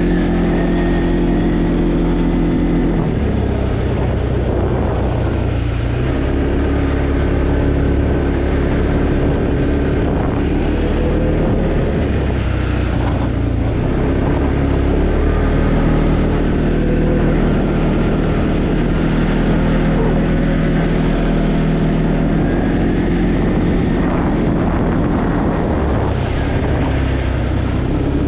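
Arctic Cat Alterra 700 ATV's single-cylinder engine running under way, its pitch stepping down and up several times as the throttle and speed change.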